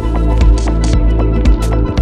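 Electronic background music with a steady beat and a deep held bass.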